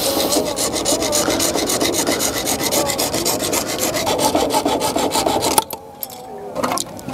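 Hacksaw cutting through PVC water pipe in quick, steady back-and-forth strokes, a dry rasping that stops about five and a half seconds in as the cut finishes.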